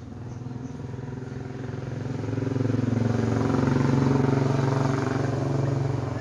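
A motor vehicle engine running, getting louder over the first three seconds or so and easing off a little near the end, as if coming close.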